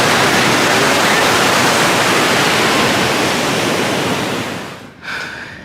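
Ocean surf rushing steadily and loudly, falling away sharply near the end.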